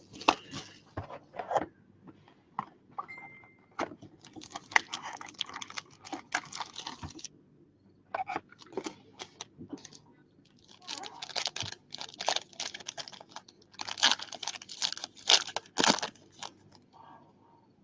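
Plastic wrapping on a sealed trading-card box being torn open and crinkled in several bursts, with sharp clicks and knocks between them as the packaging is handled.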